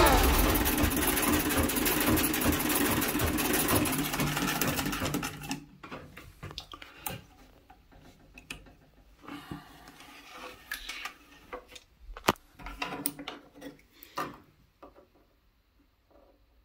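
A 1914 Singer treadle sewing machine stitching steadily for about five seconds as the treadle is pumped, then stopping. Scattered light clicks and knocks follow as the presser foot and fabric are handled.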